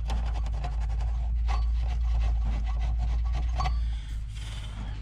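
Cloth rag wiping over the pins and solder joints of a circuit board: a run of quick scratchy rubbing strokes over a low rumble of the board being handled, easing off about four seconds in.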